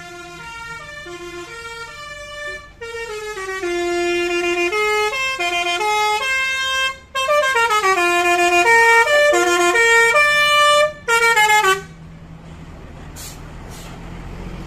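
A high-deck coach's multi-tone musical air horn (telolet horn) playing a tune of quick stepped notes in four phrases with short breaks, stopping about twelve seconds in. Then the coach's engine running as it passes, getting louder near the end.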